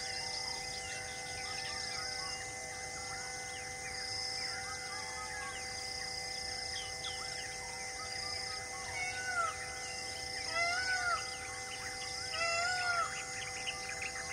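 Forest ambience: many birds chirping, with a few louder arching bird calls in the last third, over a high pulsing insect drone.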